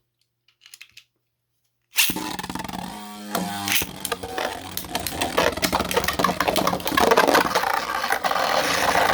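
Beyblade battle: spinning tops, one of them 3D-printed, knock and scrape against each other and the stadium walls. The dense, fast rattle of hits begins suddenly about two seconds in and grows louder toward the end.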